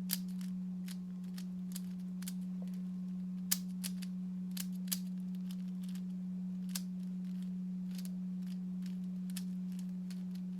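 Tiny 3x3 Rubik's cube being turned: scattered small plastic clicks, about one or two a second, over a steady low hum.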